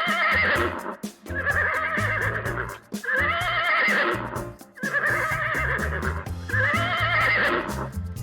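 A horse whinnying: a wavering call of about a second, repeated about every one and a half seconds. Background music with a steady beat plays under it.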